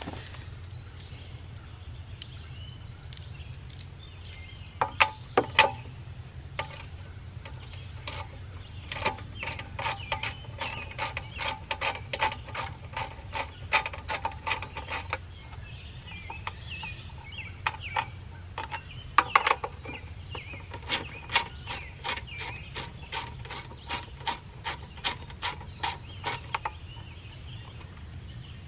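A ratcheting wrench clicking in runs of about four clicks a second as bolts are backed out of a small engine's plastic cover, with a few louder clicks in between.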